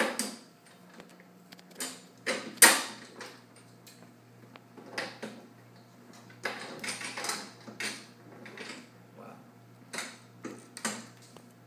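Things being handled: a series of sharp clicks and knocks with some rustling between them, the loudest knock about two and a half seconds in.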